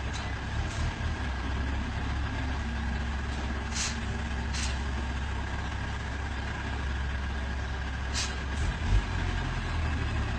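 Heavy truck's diesel engine running steadily at low speed, with several short air-brake hisses: two about four seconds in and two more about eight seconds in.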